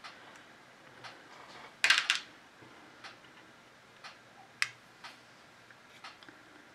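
Lead airgun pellets being handled on a small digital pocket scale: a short rattling clatter about two seconds in and a single sharp click a little past halfway. Faint ticking goes on steadily about once a second.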